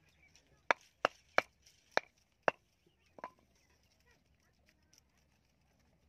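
A small hatchet striking bamboo: five sharp chopping knocks in quick succession, about half a second apart, then a sixth, weaker one about three seconds in.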